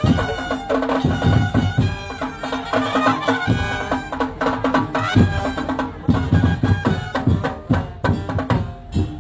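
Live traditional percussion music: drums and wood-block strokes in a fast, busy rhythm under a held melody line.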